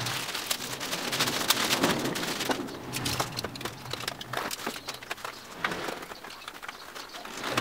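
Thin plastic bag crinkling as a cardboard parcel is handled and pulled out of it, then a box cutter scratching and slicing through the packing tape on the cardboard, with scattered small clicks.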